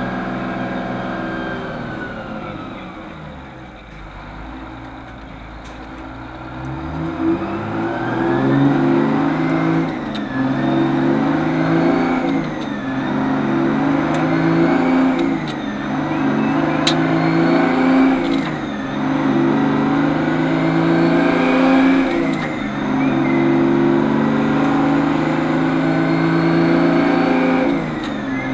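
1970 Brockway E361T truck engine heard from the cab, slowing to an idle as the truck comes to a stop. It then pulls away and climbs through the gears, the engine note rising under load and dropping at each upshift, about six shifts.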